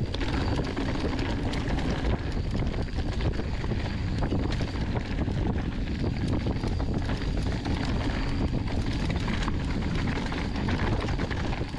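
Wind rushing over the microphone while a mountain bike descends at speed, with tyres rolling over the dirt trail and frequent small rattles and knocks as the bike runs over rough ground.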